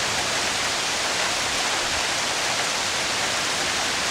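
Heavy rain coming down in a downpour, beating on pavement and a roof: a steady, dense hiss with no breaks.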